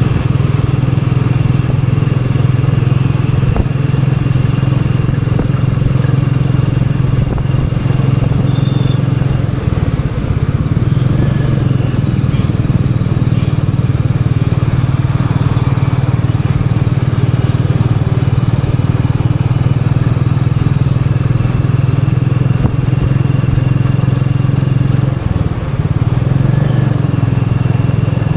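Royal Enfield Meteor 350's single-cylinder engine running steadily on a city ride, with a strong low exhaust note. The note breaks briefly about ten seconds in and again around 25 seconds.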